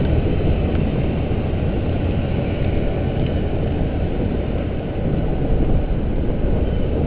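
Steady wind rush and low rumble on the microphone of a camera riding on a road bicycle at speed.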